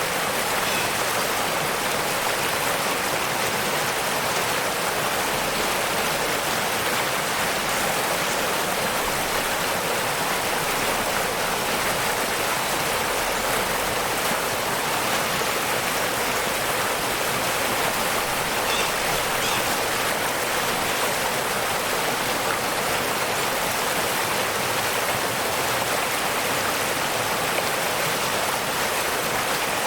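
Waterfall: a steady, even rush of falling water that never lets up.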